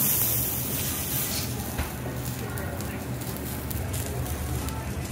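Food sizzling on a teppanyaki iron griddle, with a louder burst of hissing in the first second and a half, and a single sharp click about two seconds in.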